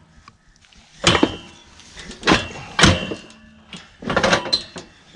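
Steel cattle chute clanging and rattling in a few sharp knocks, some with a brief metallic ring, as a calf held in it shifts against the bars.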